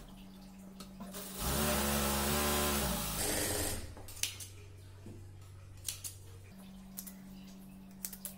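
Sewing machine running a short burst of stitching for about a second and a half, its motor whine rising and then falling away. After that come a few short sharp snips of small scissors trimming threads over a low steady hum.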